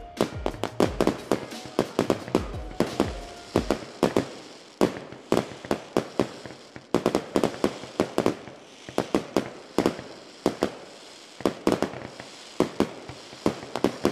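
Fireworks going off: a fast, uneven run of sharp bangs, several a second, in clusters.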